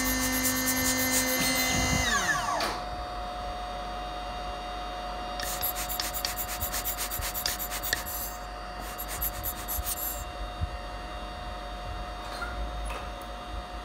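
Small CNC milling machine milling the A10 chip off an iPhone board: the spindle's high whine winds down in pitch about two seconds in. A fainter steady whine follows, with two stretches of scratchy grinding, about three seconds and one second long.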